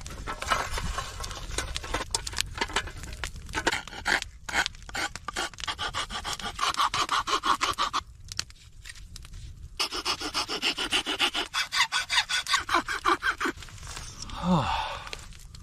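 Hand tool worked back and forth against the workpiece in steady rhythmic strokes, about three or four a second, in runs with short pauses, as in hand-sawing or rasping.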